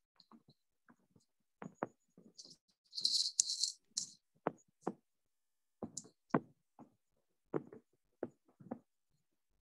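Scattered clicks and knocks, irregularly spaced, with a short burst of high rattling hiss about three to four seconds in.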